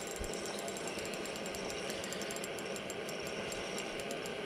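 Steady hiss of a portable radiant propane heater burning, with faint rapid ticking over it.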